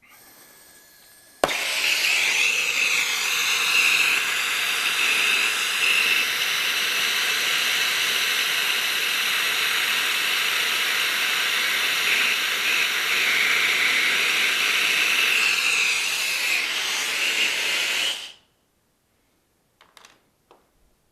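Brazing torch on copper refrigerant piping: a faint gas hiss, a sharp pop as it lights, then a steady loud hissing burn for about 17 seconds that cuts off suddenly when the torch is shut off.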